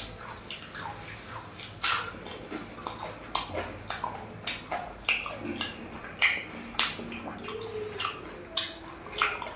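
A person eating fried fish and rice close to the microphone: chewing and lip smacking, heard as a quick, irregular run of wet clicks and smacks.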